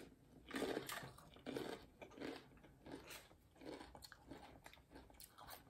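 Tortilla chip with guacamole being chewed, a regular run of crisp crunches.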